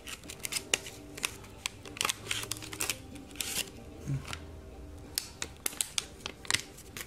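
Fidget spinner retail packaging being handled and opened by hand: a quick run of sharp plastic clicks, crackles and short rustles.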